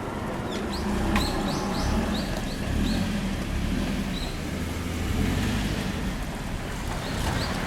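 Low, steady vehicle rumble at a railway level crossing, with short high chirps scattered through it.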